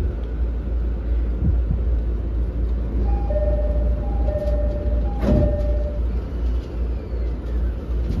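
Cabin sound of a JR 209 series 500 electric commuter car standing at a station: a steady low rumble, a two-tone door chime sounding from about three seconds in, then the doors shutting with a single knock about five seconds in.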